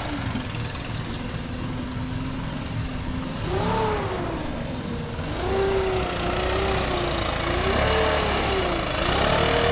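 Motor of cleaning equipment running, its pitch rising and falling several times as it is throttled up and down.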